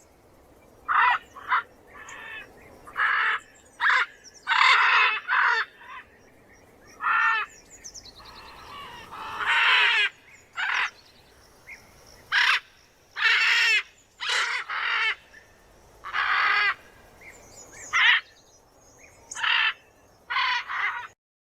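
Macaw giving about twenty harsh, raspy squawks at irregular intervals, most short and the longest about a second.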